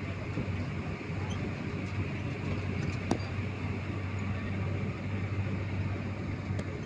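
Steady engine and road rumble heard from inside a moving vehicle, with a single sharp knock about three seconds in.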